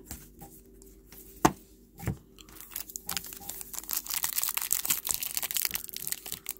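A few sharp card clicks and taps, then from about halfway a trading-card pack's plastic wrapper being crinkled and torn open, growing louder.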